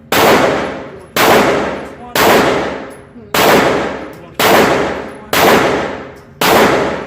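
Handgun firing a steady string of about seven shots, roughly one a second. Each shot rings out with a long echo that fades before the next.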